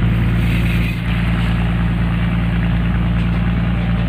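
An engine on board a fishing boat running steadily, a low, even hum.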